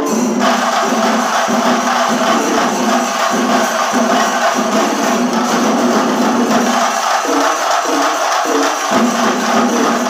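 Chenda melam: a large ensemble of chenda drums beaten together, loud and dense, with ilathalam cymbals hissing over it and held low pitched tones shifting underneath.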